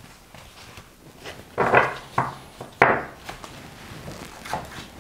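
A deck of oracle cards being handled on a cloth-covered table: a few quick rustling slides and taps of cards, the loudest about two and three seconds in.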